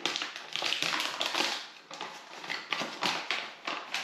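Foil freeze-dried food pouch being torn and pulled open in the hands, a run of irregular crinkling rustles.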